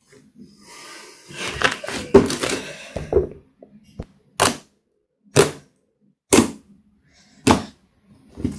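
Thick slime with eyeshadow mixed in, crackling as it is stretched and squished. Then come sharp air pops about once a second as fingers poke down into it.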